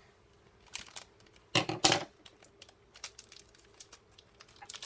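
A crinkly plastic toy blind bag rustling and crackling as it is cut open with scissors: a short crinkle just under a second in, then a louder rustle of about half a second, followed by a few faint ticks.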